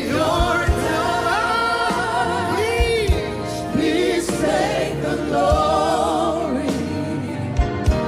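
Live gospel worship song: voices singing a slow, drawn-out melody over a band accompaniment.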